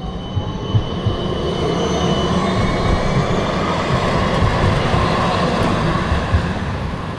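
Electric tram moving off along its rails, wheels rumbling, with a motor whine that rises in pitch over the first few seconds and then holds steady.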